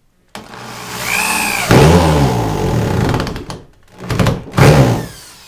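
Cordless drill driving a screw into wood. The motor spins up about half a second in and runs under load for about three seconds as the screw goes in, then two short bursts near the end snug the screw down flush.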